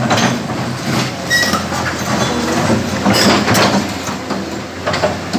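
Crawler excavator's diesel engine running steadily while its steel bucket scrapes and knocks against broken concrete slabs, with several sharp clanks and grinding scrapes.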